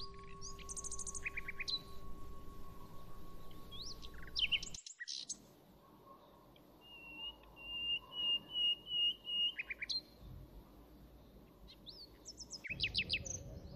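Small birds chirping and calling: short quick trills at scattered moments, and a run of evenly repeated chirps in the middle.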